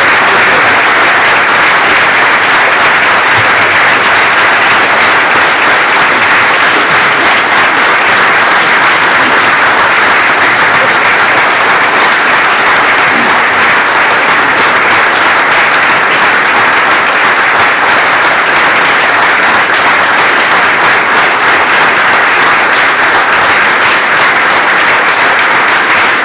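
Audience applauding: dense, even clapping that holds at a steady level.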